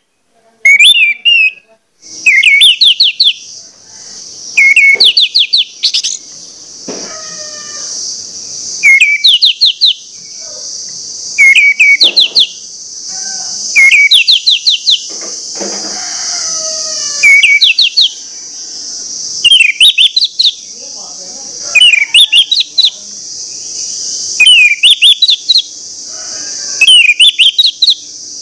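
Orange-headed thrush singing: loud, short phrases of quick rising whistled notes, repeated about every two to three seconds. A steady high hiss runs behind the song from about two seconds in.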